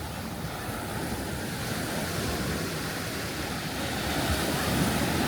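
Gulf of Mexico surf washing onto the beach, a steady rush that swells a little near the end, with some wind on the microphone.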